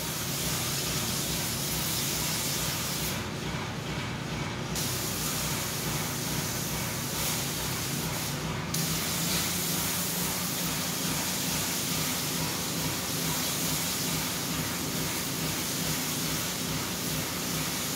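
Airless spray gun on an extension wand hissing steadily as it sprays ceramic insulation coating onto metal wall panels, with two short dips in the hiss, about three seconds in and again near the nine-second mark.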